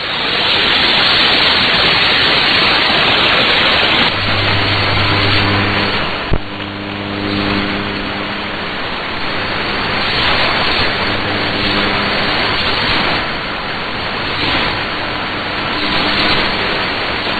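Shortwave AM radio reception between announcements: a steady rush of static and hiss over a weak signal. Faint low hum-like tones come and go under the noise from about four seconds in.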